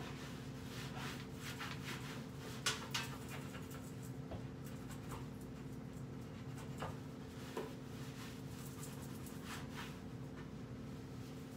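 A cloth rag rubbing over a kitchen range hood in short, irregular wiping strokes, faint, over a steady low hum.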